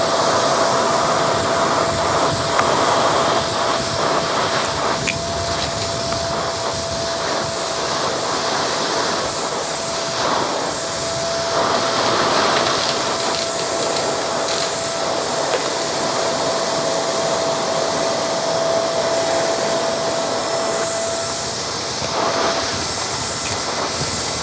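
Shark vacuum cleaner running, its motor whine steady after spinning up, with a gritty, crunchy hiss as it sucks up carpet powder. The whine drops away near the end while the suction noise carries on.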